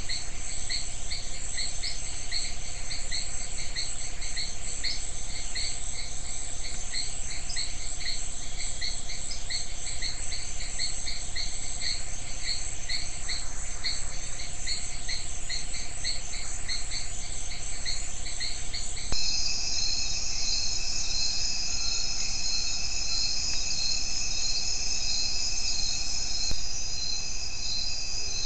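Chorus of forest insects, crickets and the like, calling in a rhythmic pulse over a continuous high buzz. About two-thirds of the way in, the chorus changes abruptly to a different set of steady buzzing tones with a slower pulse.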